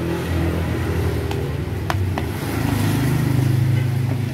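Road traffic: motor vehicle engines running, one passing vehicle getting louder about three seconds in. A few sharp ticks in the first half.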